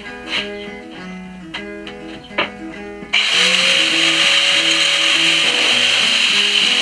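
Banjo music plays, then about three seconds in an electric angle grinder switches on and runs steadily at full speed, much louder than the music, ready to cut a steel exhaust pipe.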